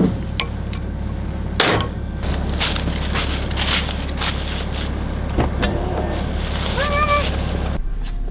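A steady low rumble with footsteps rustling through dry fallen leaves and a few light knocks. The rumble drops away abruptly to a quieter hum shortly before the end.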